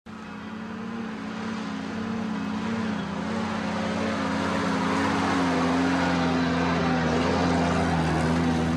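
Small van's engine running steadily as the vehicle drives toward the listener and past, growing louder as it comes closer.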